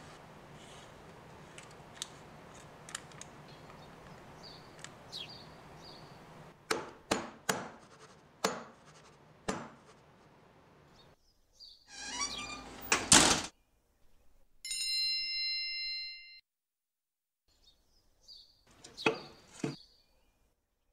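Metal loaf pan handled in a kitchen: faint scrapes and taps, then several sharp knocks in a row, a loud clatter, and a steady electronic beep lasting about two seconds. A few more knocks follow near the end.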